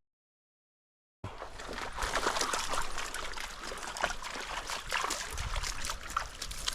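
Dead silence for about the first second, then creek water trickling, with frequent small splashes.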